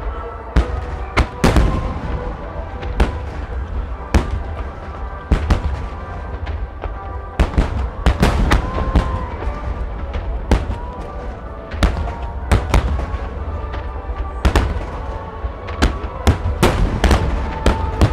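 Aerial fireworks bursting in quick, irregular succession: many sharp bangs over a continuous deep rumble, with music playing alongside.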